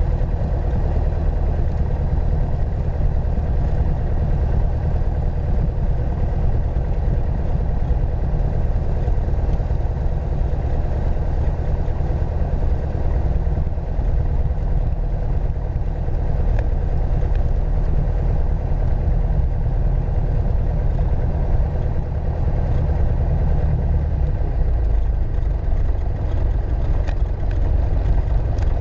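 Piper Archer II's four-cylinder Lycoming engine and propeller running steadily at low taxi power, heard from inside the cockpit as a steady low drone.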